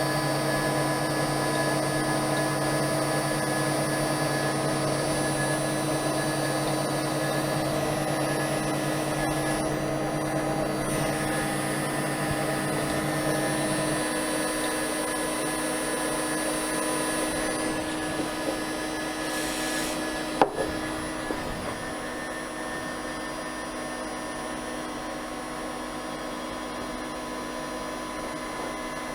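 A 6040 CNC router's spindle runs steadily with a high whine while a 6 mm two-flute end mill cuts 12 mm aluminium plate. A lower hum drops away about halfway through, and there is a single sharp knock about twenty seconds in.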